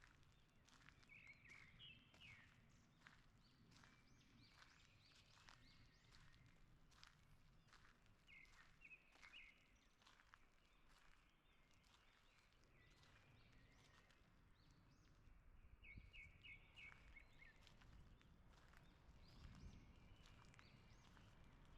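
Faint forest birdsong: several songbirds giving short groups of quick, high chirps every few seconds, over soft footsteps on a woodland path.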